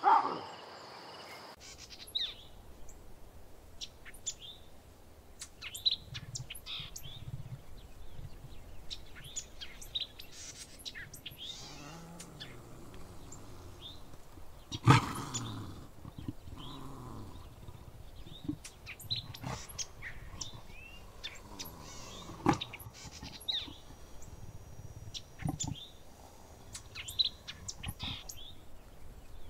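Wildlife ambience sound effect: birds chirping in short, scattered calls throughout, with a louder animal call at the start and another about fifteen seconds in.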